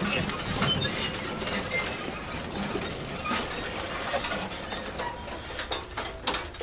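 Manure spreader running: a steady mechanical clatter of many irregular clicks and rattles, with a few sharper clanks near the end.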